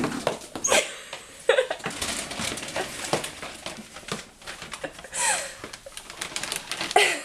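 Scattered clicks and scuffs of a dog's booted paws on a hardwood floor, with a plastic bag of rawhide chews rustling about five seconds in. A few brief voice sounds come in between.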